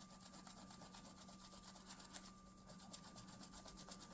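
Faint, quick scrubbing strokes of a hand rubbing old polyurethane finish off a walnut revolver grip.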